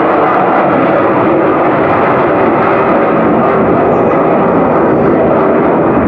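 Military fighter jet flyby sound effect: loud, steady jet engine noise.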